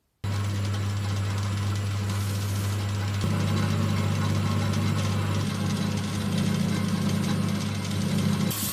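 A motor-driven machine, most likely a workshop power tool, running steadily with a strong low hum under a broad whir. It starts suddenly at full level, and its hum shifts in tone a few seconds in.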